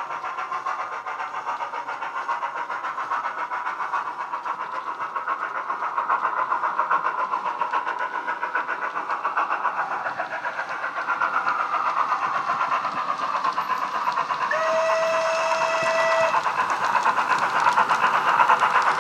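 Sound decoder in an OO gauge Hornby 'Queen Elizabeth II' steam locomotive model, playing a Jamie Goodman LokSound steam sound file through a small tablet speaker. It gives steady steam exhaust beats that grow louder as the loco approaches, with one whistle blast of about two seconds a little past the middle.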